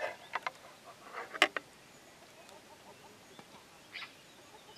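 Metal spoon scraping and clinking against a saucepan as soup is tipped out into a billy can: a few sharp clinks in the first second and a half, the loudest about a second and a half in, then only faint sounds.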